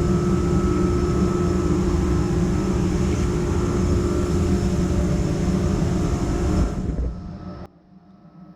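Router running steadily on a slab-flattening mill, its bit surfacing a burr oak plank. It fades near the end and then cuts off abruptly.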